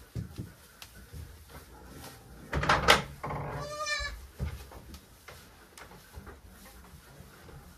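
A goat bleating once, a call about a second long, right after a short burst of loud knocking and clatter about two and a half seconds in; fainter knocks follow.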